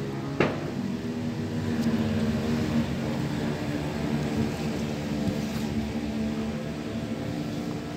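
An engine drones steadily in the background, with a single sharp click about half a second in.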